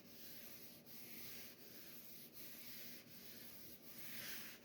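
Coarse Sandflex rubber abrasive block scrubbed back and forth on a cast-iron table saw top to rub out marks. A faint, steady rasping rub with a turn of the stroke about every three-quarters of a second.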